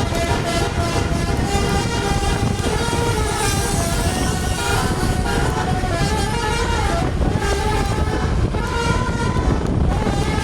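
Tour bus's 'telolet basuri' musical air horn sounding continuously, playing a melody of multi-tone notes that step from pitch to pitch, over the rumble of the engine and road.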